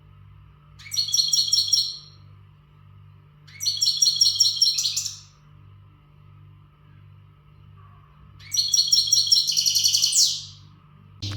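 Male European goldfinch singing its twittering song in three bursts of rapid, repeated high notes, each lasting one to two seconds, the full song of a bird in breeding condition. A faint low hum runs underneath, and a louder low rumble comes in at the very end.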